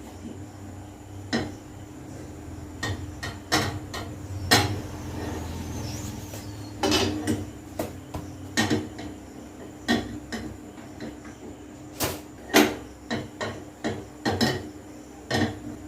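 Irregular sharp taps and clinks of a utensil against a pan while rotis are cooked, over a steady low hum.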